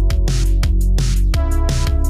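Electronic outro music with a steady beat and heavy bass.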